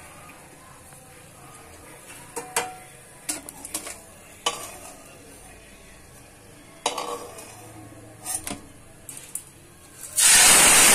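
Metal utensil clinking and knocking against a steel kadhai and plate in a string of separate strikes as fried dried red chillies are lifted out of the oil. About ten seconds in, a sudden loud sizzle starts as washed, wet black soybeans are dropped into the hot oil.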